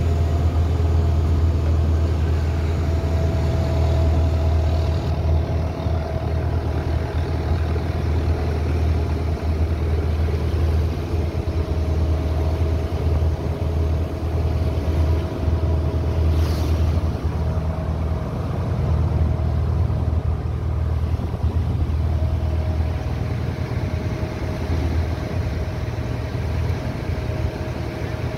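A boat's engine running steadily under way, a constant low hum heard on board, with a thin whine that comes and goes above it.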